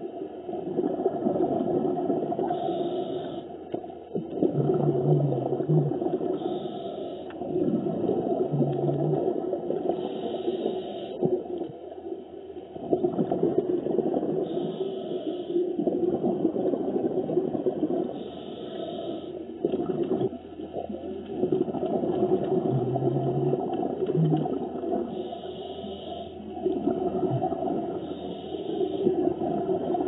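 A scuba diver breathing through a regulator, heard underwater: exhaled bubbles gurgle and rumble, swelling and fading with each breath every few seconds.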